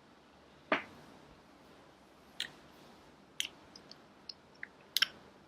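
Close-miked wet mouth sounds: about half a dozen short clicks and lip smacks spaced a second or so apart, with a few fainter ticks between them.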